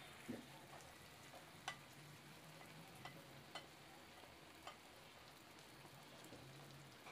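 Faint sizzling of hilsa fish steaks frying in oil in a non-stick pan as a thick spice paste is spooned over them, with a few sharp clicks of the spoon against the plate.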